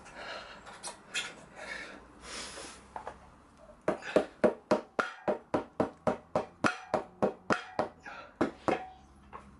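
Soft scuffing, then from about four seconds in a rapid run of around twenty sharp knocks, roughly four a second.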